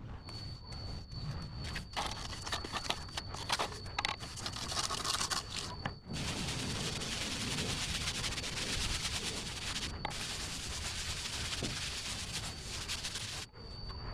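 Scraping and rubbing against a rough surface, in short strokes at first and then steady and unbroken for several seconds, with a thin high whine above it.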